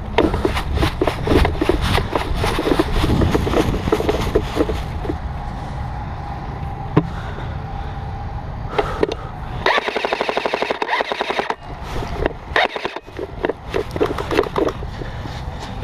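Airsoft guns firing: scattered shots and short bursts, then one long, rapid full-auto burst about ten seconds in.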